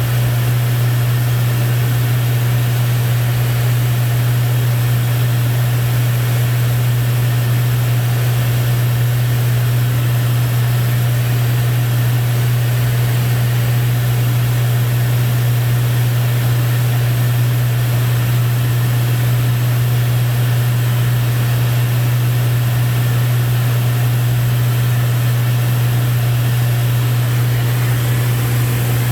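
Steady drone of a Lancair 4P's engine and propeller heard from inside the cockpit in cruise flight: a strong, unchanging low hum with a wash of airflow hiss over it.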